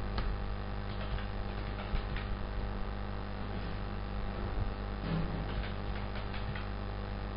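Scattered computer keyboard and mouse clicks over a steady electrical mains hum.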